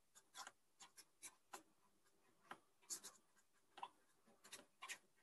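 Faint scratching of a felt-tip marker writing letters on paper, in short separate strokes.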